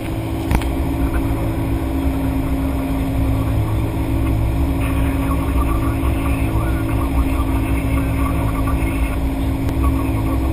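Light aircraft's piston engine running steadily, a constant drone with a low rumble under several steady tones.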